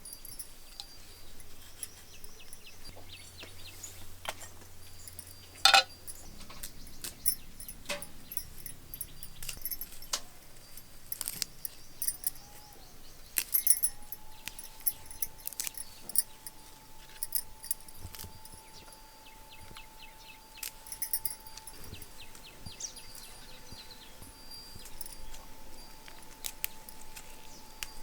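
Metal kitchen utensils clinking and clattering in a string of sharp, irregular clinks, the loudest about six seconds in. A faint steady tone sets in about halfway through.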